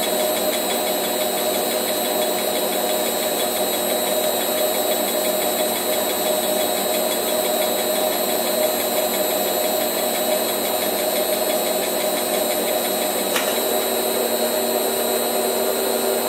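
Gear-hobbing setup on a Rivett 608 lathe running steadily: the spinning hob cutting teeth in a small gear blank, with a hum from the drive. About thirteen seconds in the sound changes abruptly as the hob stops turning at the end of the cut, and a motor keeps running with a different steady hum.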